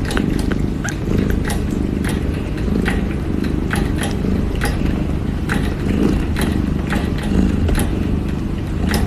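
Kitten purring steadily, close up, with soft irregular clicks about twice a second from it sucking on its own paw.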